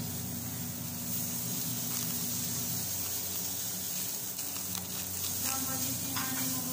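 A steady hiss with a low hum beneath it, level and unbroken throughout.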